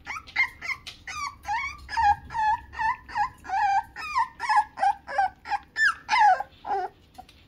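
Toy poodle puppy, about six weeks old, giving a rapid string of short, high, whining yips, about three a second, whose pitch bends within each call. They stop near the end.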